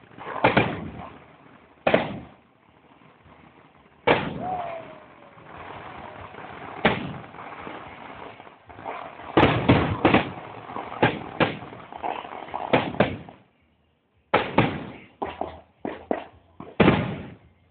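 Fireworks going off: a series of loud bangs with short echoing tails, spaced out at first, then in quick clusters through the middle and again near the end after a brief pause.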